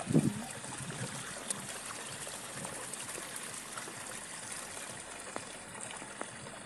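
Steady outdoor hiss of ambient noise, with a brief low thump at the very start and a few faint ticks.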